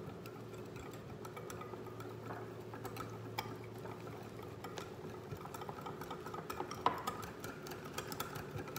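A metal utensil stirring a thick cocoa glaze in a small glass bowl: a run of light irregular clicks and scrapes against the glass, with one sharper click about seven seconds in.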